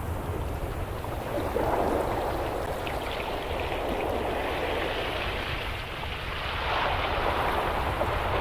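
Steady rushing water noise that swells louder twice, a couple of seconds in and again near the end, over a low rumble.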